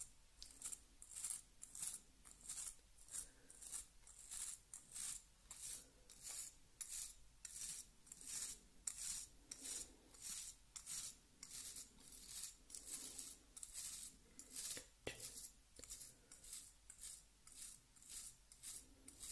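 Straight razor scraping through shaving foam in short, even strokes, about two a second.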